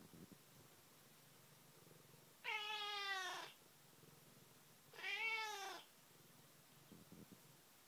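A cat meowing twice, two drawn-out calls a couple of seconds apart, each dropping in pitch toward its end.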